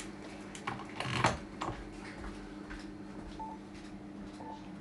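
Radio transceiver's front-panel buttons and knob being clicked while the mode and drive power are set, with two short beeps in the second half, over a steady low electrical hum.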